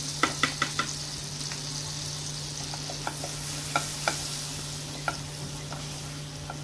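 Flour roasting in hot butter in a pan, with a steady sizzle as it is stirred. A stirring utensil clicks against the pan, four quick taps in the first second, then a few scattered ones.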